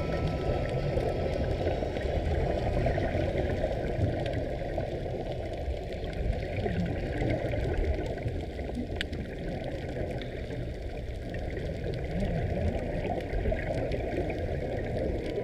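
Muffled underwater noise picked up by a submerged camera: a steady low rushing of moving water.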